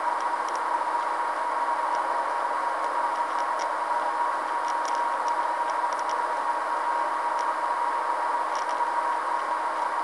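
Steady hiss with a constant high tone underneath and faint, irregular ticks.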